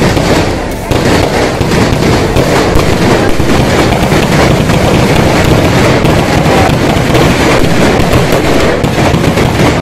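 A long string of firecrackers going off in a loud, rapid, continuous crackle. It cuts off suddenly at the end.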